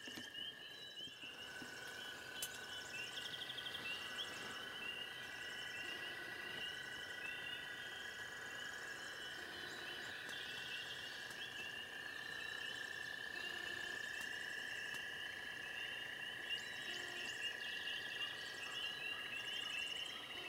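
A dense, steady chorus of calling frogs: a shrill pulsing chorus of many voices with a lower continuous trill beneath it.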